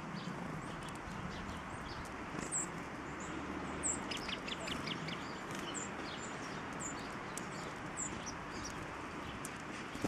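Small songbirds' high, thin call notes, short chirps repeated every second or so, with a quick run of ticking notes about four seconds in, over a steady background hiss.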